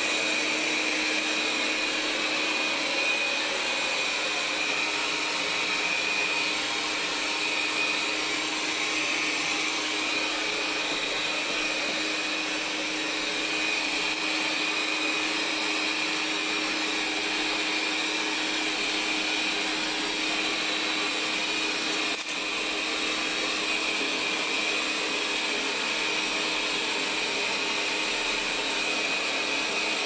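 Roidmi Eva robot vacuum running on maximum suction while sweeping and mopping: a steady fan drone with a constant high whine.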